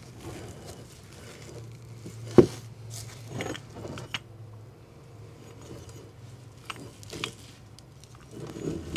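Scattered handling knocks and light rattles, the loudest a sharp knock about two and a half seconds in.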